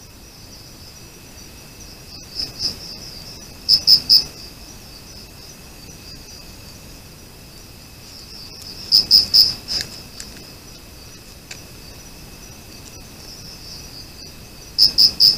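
Crickets chirping at night: a steady high trill, with a closer, louder cricket giving short groups of three or four chirps a few times.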